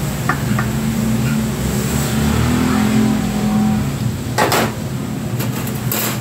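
Steady low machine hum with a few light knocks and clicks, likely containers being handled and set down against a stainless steel bowl, mostly about four and a half seconds in and near the end.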